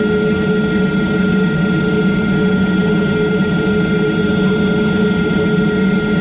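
CNC milling machine running: a steady machine hum with a constant high whine.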